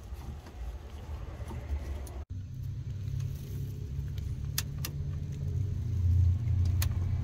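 A few small metallic clicks as a screwdriver turns the screws that hold a car's gauge cluster to the dash, over a low steady rumble that grows louder near the end.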